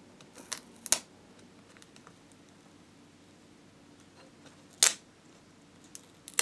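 A few sharp clicks and a short crackle as fingers pick at and peel the adhesive tape over a laptop LCD's video-cable connector. The loudest come about a second in and near five seconds in.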